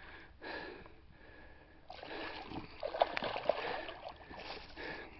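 A large hooked common carp thrashing at the water's surface, splashing in bursts, busiest from about two seconds in with a few sharp slaps.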